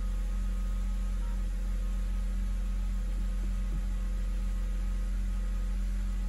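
A steady low hum with a faint hiss over it, holding an even level with no clear change.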